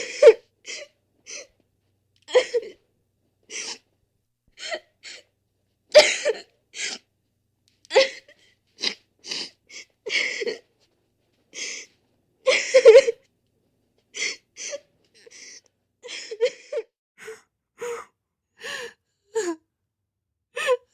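A person crying in short, separate sobs and gasping catches of breath, roughly one a second, with silence between them.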